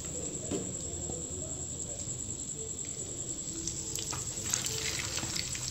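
Hot cooking oil sizzling in a frying pan, crackling more densely from about four seconds in as an egg-coated chicken piece is laid into the oil. A steady high-pitched whine runs beneath it.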